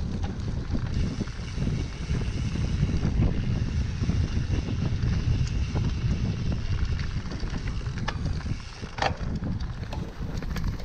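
Wind rushing over the microphone of a riding cyclocross bike, over a steady rumble of knobbly tyres on a dirt trail with small rattles and clicks from the bike. A short sharp sound stands out about nine seconds in.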